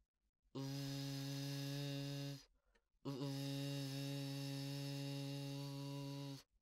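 Low, steady humming held in two long notes with a short break between them, the second starting with a slight bend in pitch and a higher note joining near its end.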